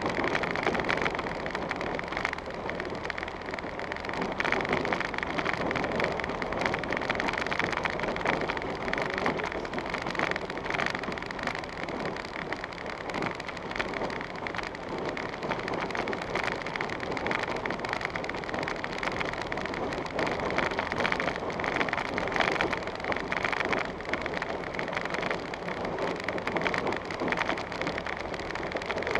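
A vehicle driving slowly over a rough dirt and stony track, heard from a dashcam inside it: a steady running noise with a dense crackle of small knocks and rattles from the tyres and body on the uneven ground.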